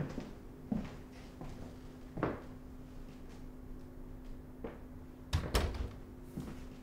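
Scattered knocks and clicks of household things being picked up, moved and set down, the loudest a close pair about five and a half seconds in, over a faint steady hum.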